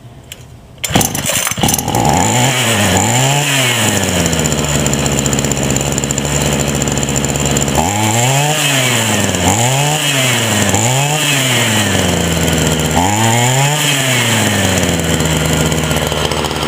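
Homelite string trimmer's small two-stroke engine starting about a second in, then blipped up and down in short revs several times between spells of steady idling. It is running again after its varnished carburetor was cleaned and blown out.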